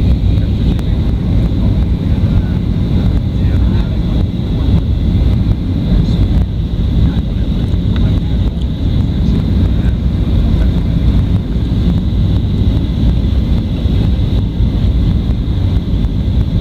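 Steady cabin noise inside a Boeing 737 airliner descending on approach: a deep, even rumble of engines and rushing air, with a thin steady high whine above it.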